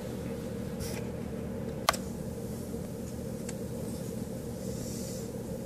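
A steady low hum, with one sharp click about two seconds in and a fainter tick later.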